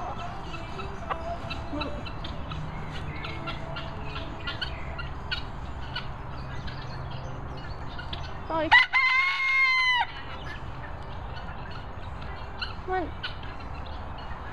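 A rooster crows once, about eight and a half seconds in: a single call that rises and then holds level for about a second and a half before dropping away.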